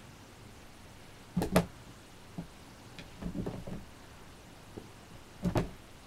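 Kitten's paws knocking and tapping on the lid of a clear plastic storage box, in short irregular clusters; the loudest pair of knocks comes about one and a half seconds in, with more just after three seconds and near the end.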